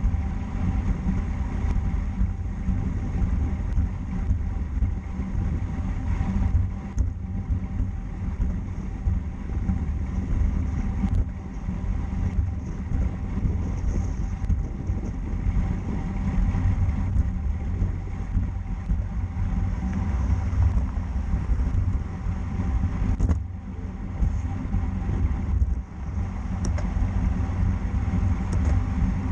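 Steady wind buffeting a moving bicycle's camera microphone, a loud low rumble mixed with road and tyre noise.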